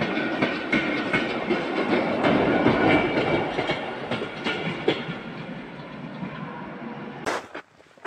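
River running high with spring meltwater: a steady rushing and splashing of water full of small irregular clicks, slowly growing quieter toward the end.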